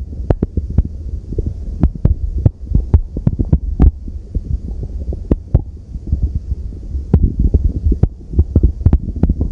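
Human stomach growling and gurgling: a continuous low rumble broken by many quick, irregular pops and squelches.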